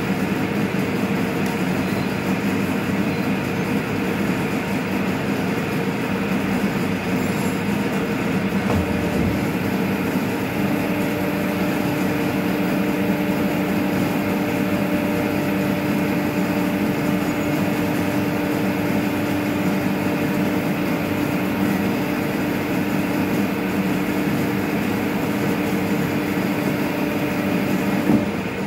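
Pipe-bending machine running steadily while it bends a stainless steel tube. About ten seconds in, a steady hum joins its noise and holds until just before the end.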